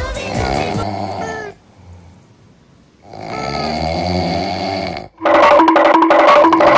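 Snoring sound effect, two long snores with a short pause between. Just after five seconds a much louder, repeating tonal sound cuts in.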